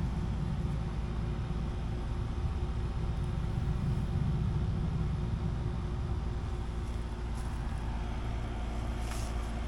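A steady low rumble with a faint machine hum running under it, and a brief hiss near the end.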